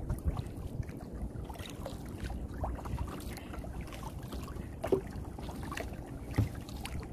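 Small boat being rowed with aluminium oars, with wind rumbling on the microphone and two sharp knocks about five and six and a half seconds in.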